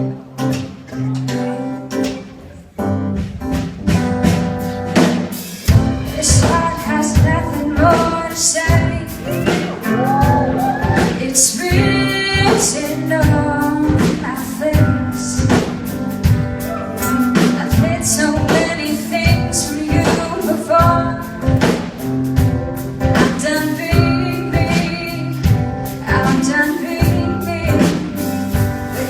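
A song: a voice singing over instrumental backing with a steady beat.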